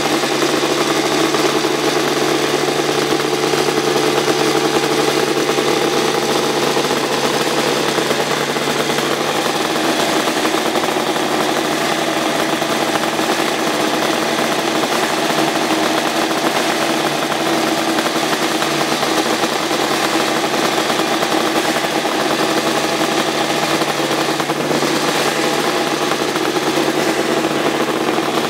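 Kawasaki KR500 racing motorcycle's two-stroke square-four engine running at a steady idle, its pitch shifting slightly a couple of times.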